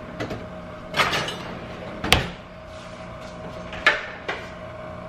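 Four separate sharp knocks and clunks of dishes and utensils being handled on a kitchen counter, the loudest about two seconds in, over a steady hum.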